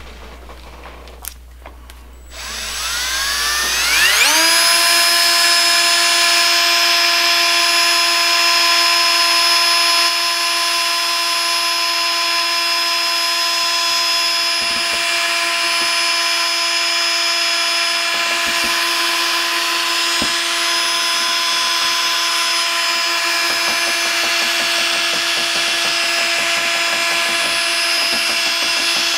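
Cordless drill spinning a mixing paddle in a bucket of epoxy resin. The motor winds up about two seconds in, then runs at a steady whine.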